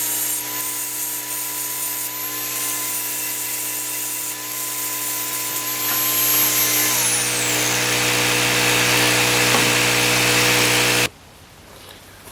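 Mini angle grinder grinding the head off the steel pin through a shovel's handle socket: a steady high whine over harsh grinding noise. About seven seconds in the whine drops in pitch and the grinding gets louder, and about eleven seconds in it cuts off suddenly.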